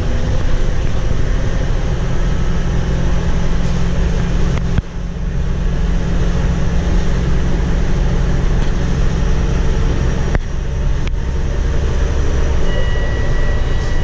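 The bus's Scania DC9 five-cylinder diesel runs steadily under way, heard from inside the cabin over road and tyre noise, with a few sharp rattles and knocks from the body. The engine note dips briefly about five seconds in, and a high steady beep sounds near the end.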